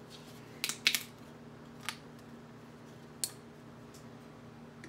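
Sharp plastic clicks and taps from a small plastic drink bottle being handled and opened. There is a quick cluster of three about a second in, then single clicks twice more.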